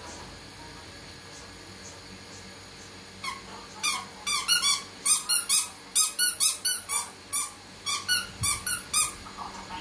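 Squeaky toy squeezed over and over: a run of short, high squeaks, about three a second, starting about three seconds in.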